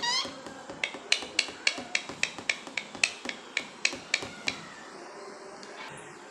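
Pet parrot making a brief rising squeak, then tapping its beak against a hard toy in a run of about fourteen sharp, slightly ringing taps, roughly three a second, stopping after about four and a half seconds.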